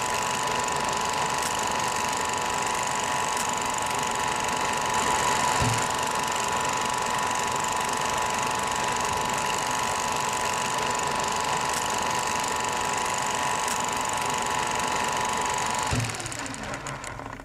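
A small machine running with a steady mechanical clatter and a constant high whine; about sixteen seconds in, the whine stops with a low thump and the clatter fades out.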